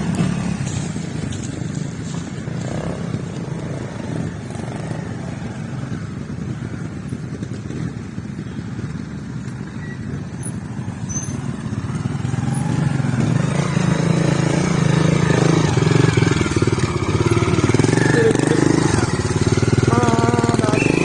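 Trials motorcycle engine running at low revs with throttle blips, growing louder about halfway through as the bike comes close.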